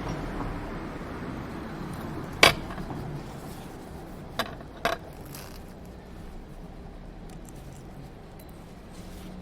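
Breakfast-table tableware clinking: one sharp clink about two and a half seconds in, then two lighter clinks close together about two seconds later, over a low steady background noise.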